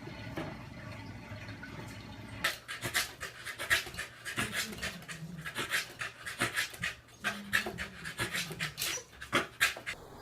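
A dog panting in quick, rapid breaths, starting about two and a half seconds in.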